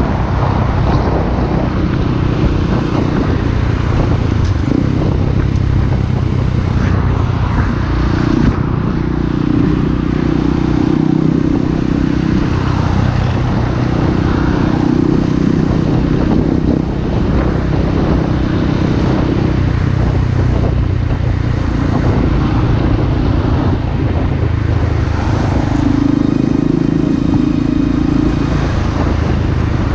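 Small motorcycle's engine running at road speed, its note swelling and easing several times as the throttle opens and closes, under steady wind rush and road noise.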